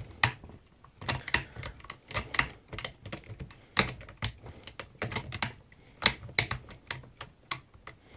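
Homemade curtain pick and wire worked inside a 5-lever Era mortise lock: irregular sharp metallic clicks and ticks, several a second, as the levers are manipulated.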